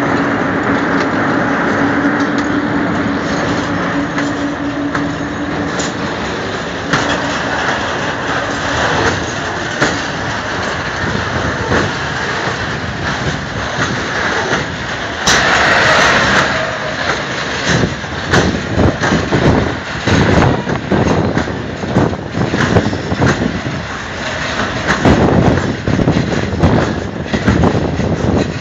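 A PKP ET22 electric freight locomotive passes close by with a steady hum, then its train of tank wagons rolls past. There is a brief loud rushing noise about halfway through. After that come repeated knocks of the wagon wheels over rail joints.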